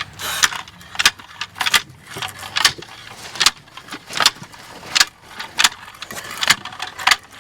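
Mingo Marker log marker spraying quick dabs of marking paint onto logs: a rapid series of short, sharp spray-and-knock sounds, about one or two a second.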